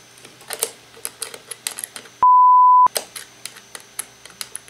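A censor bleep: one steady beep lasting under a second, about two seconds in, with all other sound cut out while it plays, covering a bleeped-out curse. Around it, small scattered clicks and scrapes of a screwdriver working a hinge screw on the radio's wooden case.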